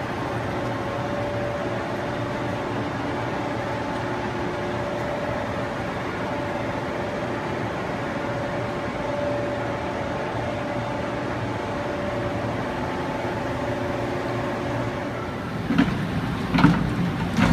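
Cincinnati Milacron Cinturn CNC lathe running: a steady machine hum with one held tone. A few clunks come near the end.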